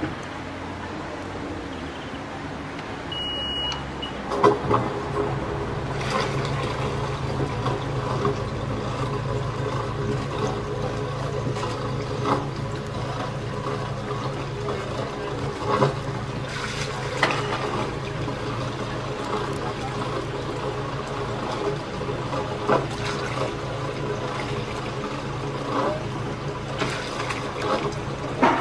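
Water rushing into a lock chamber as the sluices let it fill: a steady churning rumble that sets in abruptly about four seconds in, with a few sharp knocks scattered through it.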